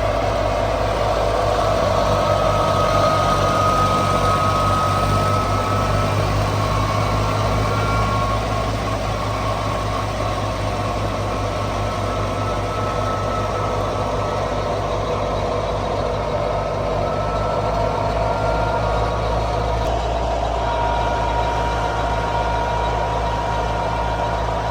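Massey Ferguson 385 tractor's four-cylinder diesel engine running steadily under load while driving a mustard thresher, its low pulse mixed with the thresher's whirring and a faint whine that wavers slightly in pitch.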